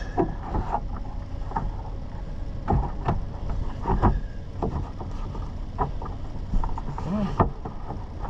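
Scattered clicks and knocks of parts being handled while reassembling a pickup truck's door, over a steady low hum.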